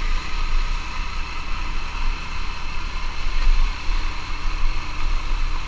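Motor scooter's engine running steadily while riding, with wind buffeting the microphone in a fluctuating low rumble.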